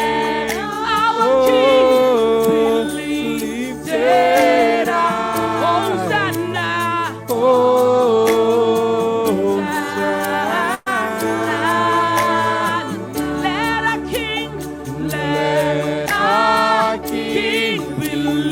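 Worship team singing a slow praise song over held low chords that change twice, with a very short break in the sound about eleven seconds in.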